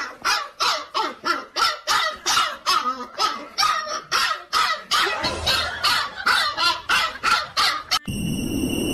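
Husky puppy barking over and over, about three short barks a second. Near the end it cuts off suddenly into a steady hiss.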